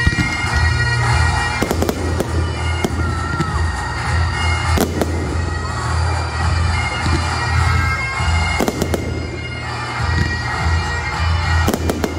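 Fireworks going off, several sharp bangs a few seconds apart, over bagpipe music with its steady drone.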